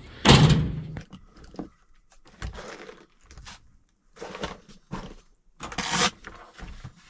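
Tools and gear being rummaged through and handled: a knock just after the start, then a string of separate clatters, scrapes and rustles, the loudest about six seconds in.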